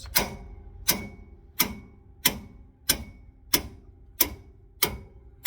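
Hammer blows driving a pickle fork between a Ford Super Duty's drag link and pitman arm to pop the joint loose: a steady run of sharp, ringing metal strikes, about one every two-thirds of a second, nine in all.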